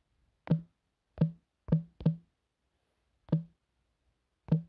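Smartphone on-screen keyboard key-press sounds: a short pitched knock with each tap as a word is typed, six taps at uneven intervals.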